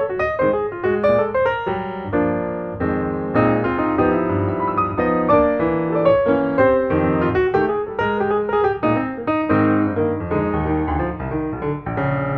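Background piano music with many quick notes and chords.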